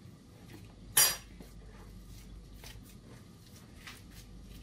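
Potato masher striking the bottom of a glass dish while mashing boiled potatoes: one sharp clink about a second in, then a few faint taps.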